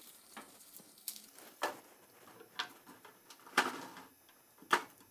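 Kitchen knife and fingers working a garlic clove on a small plastic cutting board: peeling and trimming it gives about five sharp, irregular knocks and clicks, the loudest about three and a half seconds in.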